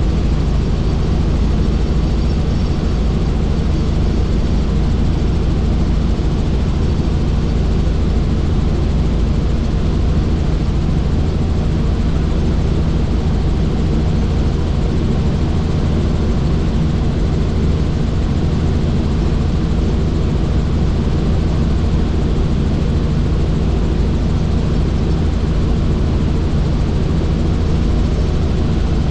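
Helicopter in flight: steady, loud rotor and engine noise with an even low hum and no change in pitch or level.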